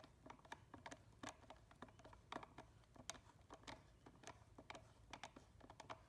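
Faint, irregular clicks and ticks of a screwdriver turning a screw on the terminal block of a fire alarm pull station, tightening a wire under it, several clicks a second.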